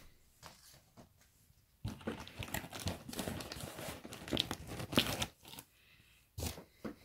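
Packing tape being torn and peeled off a cardboard shipping box: a dense ripping and crinkling for about three seconds, loudest near the end, then a short tear a second later.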